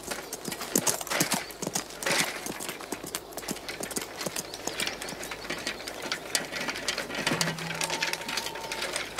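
Horses' hooves clip-clopping on a dirt road in an irregular run of knocks.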